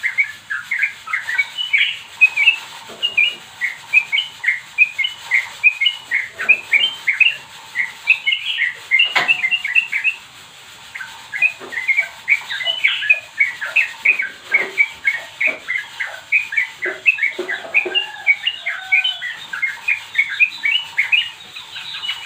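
Young yellow-vented bulbul (trucukan) singing in rapid strings of short, bright chirps, with a brief pause about ten seconds in. One sharp click comes just before the pause.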